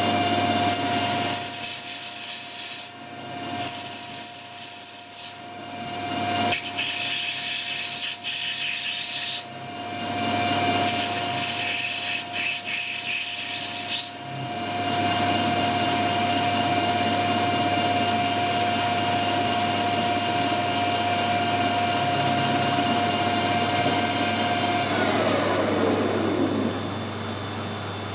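Metal lathe running with a steady whine while a cutting tool turns a small brass part, the cuts coming in several separate passes with short gaps between them. Near the end the lathe switches off and the whine falls away as it spins down.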